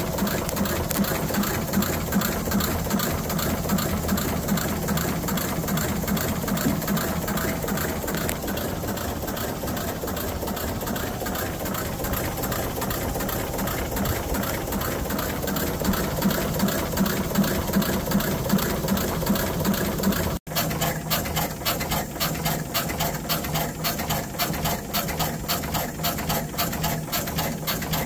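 Small reciprocating steam engine of a steam launch running with a fast, even mechanical beat. The sound drops out briefly about twenty seconds in.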